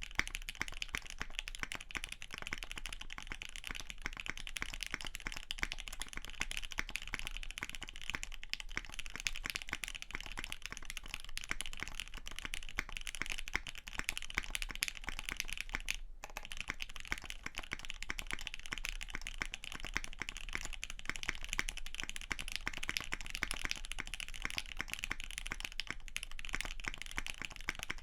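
Fast, continuous typing on a custom 60% mechanical keyboard with lubed Gateron Ink Black linear switches, a UHMWPE plate and GMK keycaps: a steady stream of key strokes. It pauses briefly about a third of the way through and again just past halfway.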